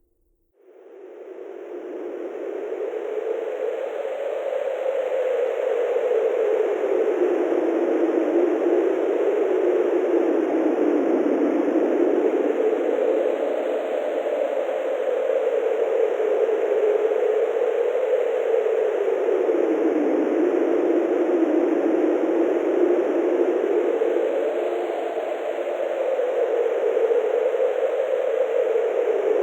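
Wind sound effect: a steady rushing noise with a low howl that slowly rises and falls in pitch. It fades in from silence over the first few seconds.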